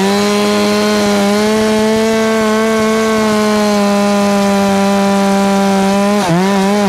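Large two-stroke chainsaw held at high revs with a steady high pitch. About six seconds in the pitch dips, then wavers rapidly. The chain has just gone dull, which the owner puts down to hitting something in the log.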